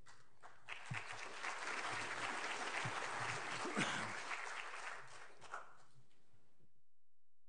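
Audience applauding: the clapping builds about a second in, holds, then thins out and cuts off abruptly near the end.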